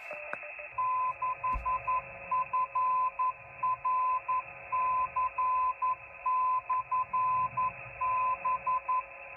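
Morse code from the 10-metre amateur radio beacon K6FRC/B, received on an Icom transceiver's speaker: a keyed tone of about 1 kHz sending short and long elements in groups that spell "6FRC/B", over steady receiver hiss.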